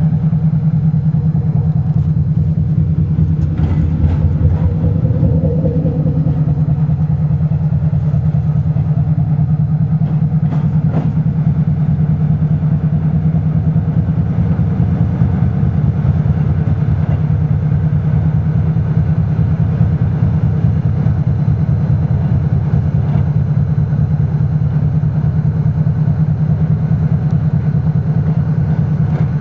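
Diesel engine of a 2TE10U locomotive, a two-stroke opposed-piston 10D100, running steadily with a low, rapid pulsing drone. A few faint clicks come about 2, 4 and 11 seconds in.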